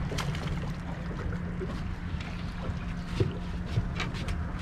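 Steady low rumble of wind and a boat on open water, with a short splash right at the start and another about four seconds in as a hooked sheepshead thrashes at the surface beside the boat.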